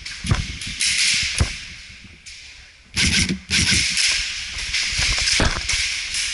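Rustling of clothing and gear as an airsoft player moves, in bursts that start and stop abruptly, with a few sharp knocks and scuffs scattered through it.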